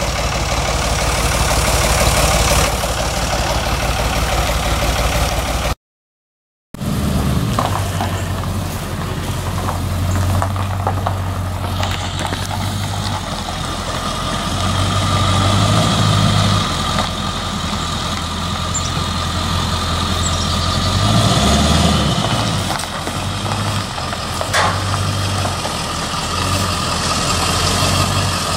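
Pickup truck engine idling, then running at low speed while towing a loaded flatbed trailer. The sound drops out completely for about a second, around six seconds in.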